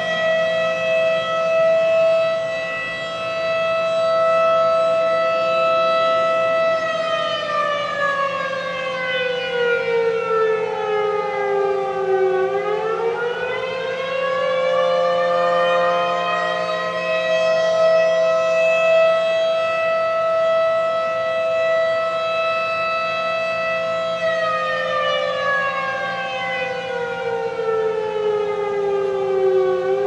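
Federal Signal Model 7 mechanical civil defense siren sounding the attack signal. Its pitch holds steady, winds down over about five seconds and winds back up, then holds again before winding down a second time near the end. Steady tones from other distant sirens sound underneath.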